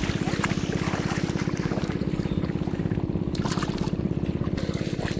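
A small engine running steadily with a fast, even beat, with water splashing over it.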